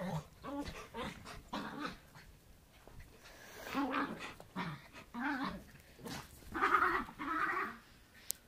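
Dogs giving a string of short, excited barks and yelps. They are worked up over a rock held in the owner's hand. A sharp click comes just before the end.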